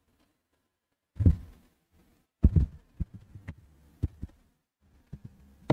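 A microphone at a lectern being handled and bumped, giving about eight dull thumps and knocks at uneven intervals through the sound system, the loudest about a second in and again a second later.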